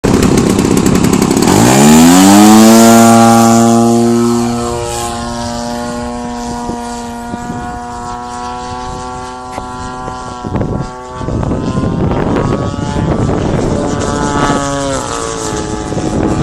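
Extra 330S aerobatic plane's engine and propeller passing overhead, its pitch dropping sharply about two seconds in, then droning at a steady pitch. In the second half, gusty wind noise on the microphone covers most of it, and the engine tone swells and falls again briefly near the end.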